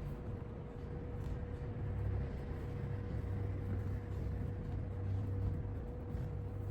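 Steady low mechanical hum with a faint constant whine above it, unchanging throughout; no distinct sounds stand out over it.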